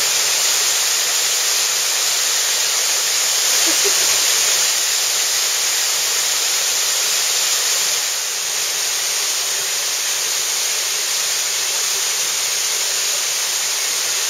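Waterfall pouring into a pool, a steady loud rush of falling water.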